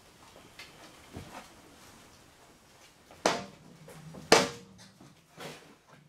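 Two sharp knocks about a second apart, a little past halfway, the second the louder and briefly ringing, with a few fainter clicks and knocks around them.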